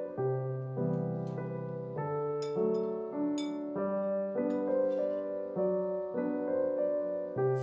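Gentle solo piano background music, with a few light clinks of a metal spoon against a ceramic bowl as a paste is stirred.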